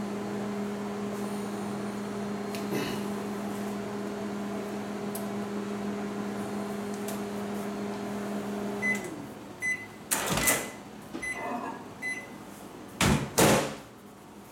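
Countertop microwave oven running with a steady hum, which stops abruptly about nine seconds in; a few short high beeps follow, signalling the end of the heating cycle, then two loud clunks.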